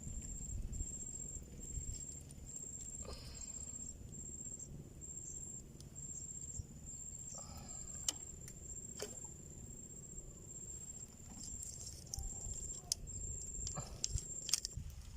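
A high-pitched insect call pulsing steadily at about two chirps a second, over a low steady rumble, with a few sharp clicks or knocks.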